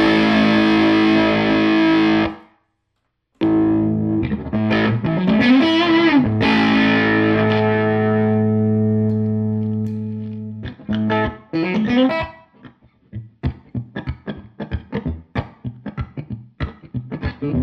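Electric guitar played through a Tone King Gremlin amplifier at maximum gain on its rhythm channel. It plays distorted sustained notes and slides, with a brief stop about two seconds in. From about twelve seconds in come shorter, choppier picked notes as the guitar's volume knob is rolled down.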